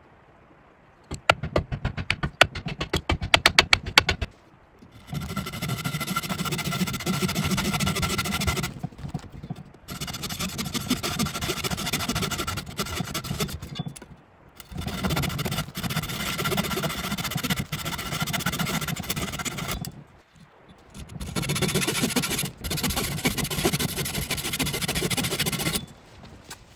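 Small saw cutting in four long runs of about four to five seconds each, with short pauses between them. A quick series of sharp clicks comes before the first cut.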